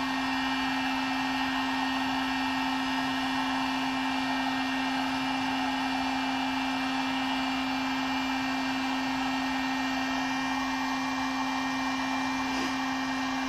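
Heat gun left running, a steady electric blower whir with a constant hum.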